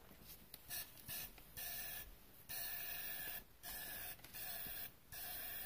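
Eastwood powder coating gun spraying powder on low-pressure compressed air in about seven short hissing bursts, with a faint whistling tone in each burst.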